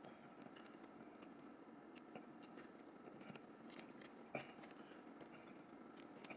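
Faint scattered clicks and scrapes of small tools working on a mobile phone's plastic and metal parts, with one sharper click about four seconds in.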